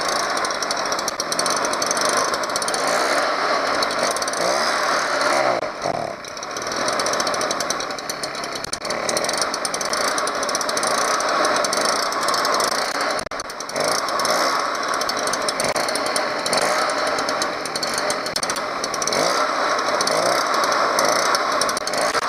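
Stihl BR 400 backpack leaf blower's two-stroke engine running steadily, its speed dipping briefly about six seconds in and again a little past thirteen seconds, while its carburetor screws are being adjusted.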